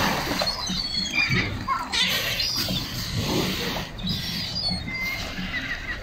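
Gulls and sea lions calling: many short, high squealing calls, some rising or falling in pitch, come at irregular moments over a low rumble of wind and water.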